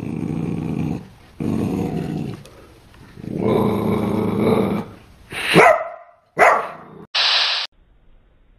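Corgi puppy growling in three long, low rumbles, then giving two sharp barks, the first sliding down in pitch. A short hiss follows near the end.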